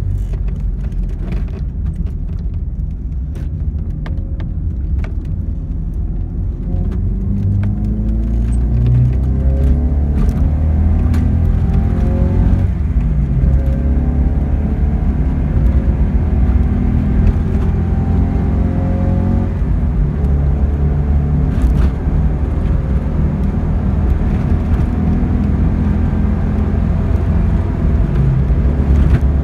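The flat-four boxer engine of a 1992 Alfa Romeo 33 1.3 V, heard from inside the cabin, pulling up through the gears over road noise. It climbs in pitch in each gear, drops at a shift about halfway through, and drops again about two-thirds in before settling to a steady cruise. The engine is running on freshly fitted Bosch Super W5DTC spark plugs.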